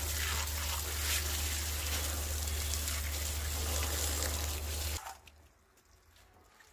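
Water running from a wall tap and splashing into a plastic tub of fresh spinach and fenugreek leaves as they are rinsed by hand. The running water stops abruptly about five seconds in.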